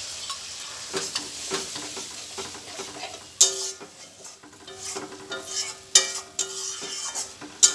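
A spoon stirring and scraping in a kadai of sizzling masala just thinned with a little water, with sharp clinks against the pan that ring briefly, the loudest about three and a half seconds in, at six seconds and near the end.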